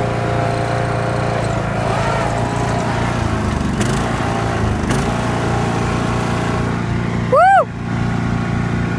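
Toro riding lawn mower's engine running steadily. About seven and a half seconds in, a short loud squeal rises and falls in pitch.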